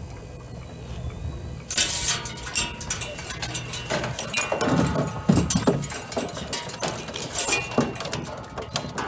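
Belitronic jigging machine hauling a string of mackerel feathers in over a metal roller and stripper box. From about two seconds in there is a dense, rapid clicking and clinking as hooks and line run over the roller, with a few heavier knocks in the middle.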